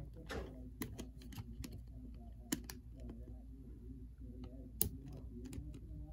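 Irregular small sharp clicks and scrapes of a knife blade prying at the plastic clips of a Tyco Power Torque brush plate, with two louder clicks about two and a half and five seconds in.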